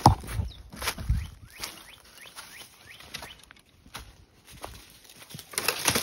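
Footsteps crunching and crackling through dry fallen leaves and twigs. There are a few heavier thuds in the first second and a denser patch of crunching near the end.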